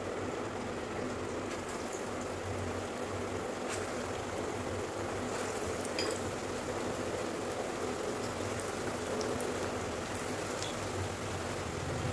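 Spinach and onion pakoras frying in hot oil in a steel kadhai: a steady sizzle with scattered small crackles, as handfuls of gram-flour batter are dropped into the oil.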